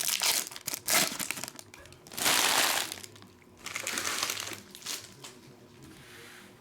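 Foil trading-card pack wrappers crinkling and crumpling as packs are torn open and handled, in several loud bursts, the longest about two seconds in, then quieter rustling.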